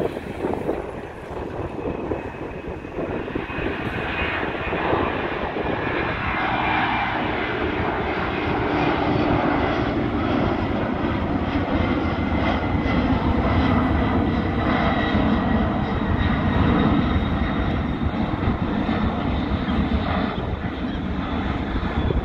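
Twin GE CF6-80C2 turbofans of a UPS Boeing 767-300ER freighter at climb power just after takeoff: a loud jet roar with a faint high whine. It builds to its loudest about midway, then eases a little as the aircraft climbs away.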